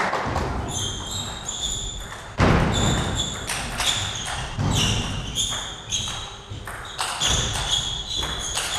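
Table tennis rally: the ball clicking off the rackets and the table in quick succession, with short high squeaks of players' shoes on the hall floor and a few low thumps of footwork.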